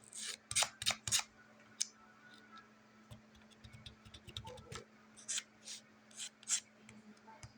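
Small plastic toys on a fidget board being clicked and snapped by fingertips: a run of sharp, irregular clicks, with a dense burst at the start and another group past the middle.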